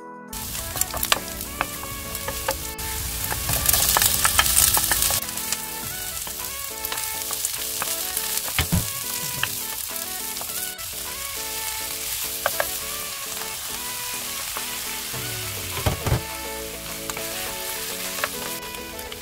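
Food frying in hot oil in a pan: a steady sizzle with scattered crackles and pops, which grows louder for a moment about four seconds in.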